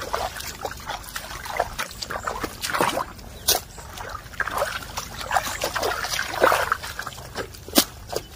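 Sloshing, squelching and splashing of shallow muddy water and wet clay as people wade through a flooded paddy field and work the mud with hoes, with a couple of sharp knocks about 3.5 and 8 seconds in.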